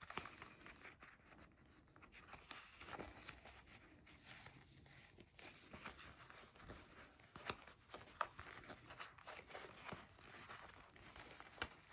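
Faint, scattered rustling and small crackles of a vinyl pouch being squeezed and turned right side out by hand.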